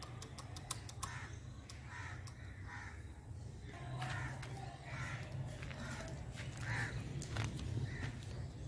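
Crows cawing again and again, faint, a call every second or so, with a few faint clicks about a second in.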